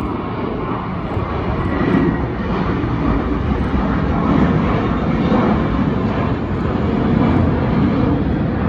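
Airbus A321 jet airliner climbing out after takeoff, its engines at climb thrust: a steady jet rumble that swells over the first couple of seconds and then holds.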